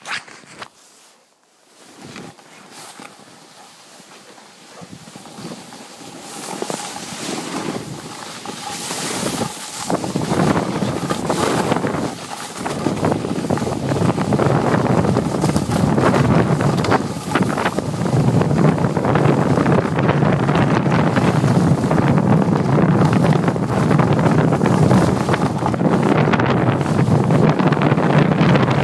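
Wind buffeting the microphone together with the rush of sliding downhill over snow, building over about the first ten seconds and then steady and loud.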